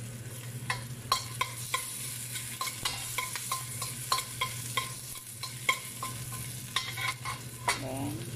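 Chopped garlic and onion sautéing in oil in a stainless steel wok, with a steady sizzle. A metal spoon stirs and scrapes, giving frequent sharp, ringing clinks against the wok. A steady low hum runs underneath.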